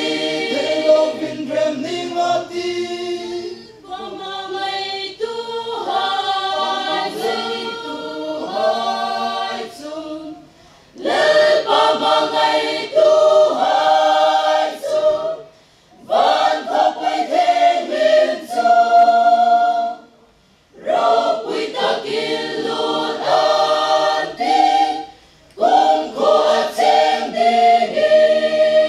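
Mixed choir of men and women singing a cappella in several parts, in phrases of about five seconds with short breaks between them.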